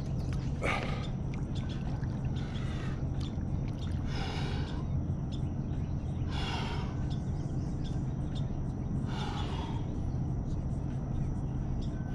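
A man breathing heavily while leaning over, about five loud breaths a couple of seconds apart, over a steady low hum.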